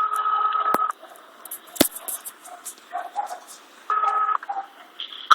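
Telephone ringback tone heard through a phone's speaker, the Spanish 425 Hz ring of about a second and a half. One ring ends about a second in. The next starts about four seconds in and is cut off after half a second as the call is answered, with a couple of sharp clicks between the rings.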